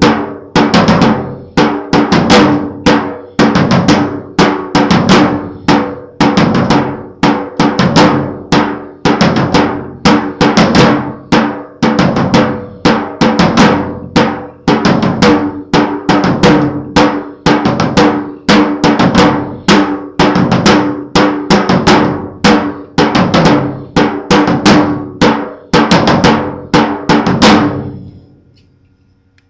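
Drum-driven music with a steady beat of drum hits about twice a second over a held low note, fading out near the end.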